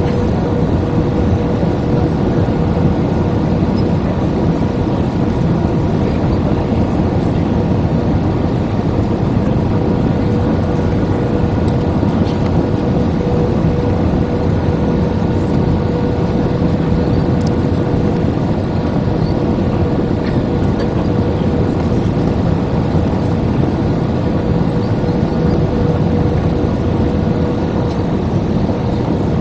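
Airbus A320-214 cabin noise on final approach: a steady roar of airflow and its CFM56 engines heard from a window seat over the wing, with a steady hum tone running through it.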